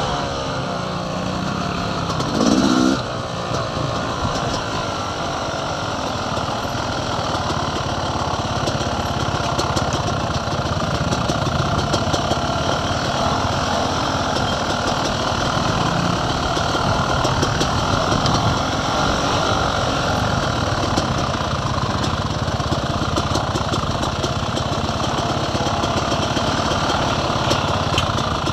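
Dirt bike engines running steadily at low trail speed, with a short louder noise about two and a half seconds in.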